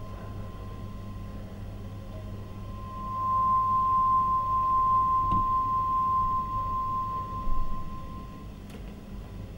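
A single sustained pure high tone from the dance's accompanying music, swelling louder about three seconds in and easing back near the end, over a low steady hum. A short knock sounds near the end.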